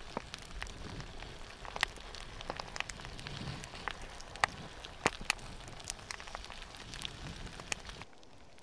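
Pahoehoe lava breaking out of its crust, with irregular sharp crackles and clicks over a soft hiss as the cooling glassy crust cracks. About eight seconds in it falls to a fainter hiss.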